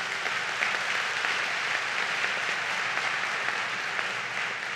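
Large audience applauding, a steady dense clapping that eases off slightly near the end.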